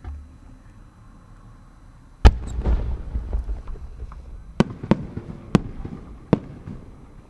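Fireworks going off: a loud bang about two seconds in with a rumbling echo after it, then four sharp cracks spread over the next four seconds.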